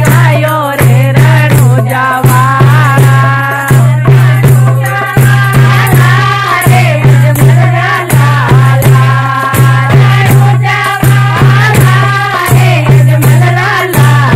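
Marwari devotional bhajan: singing over a steady, deep drum beat with rattling percussion.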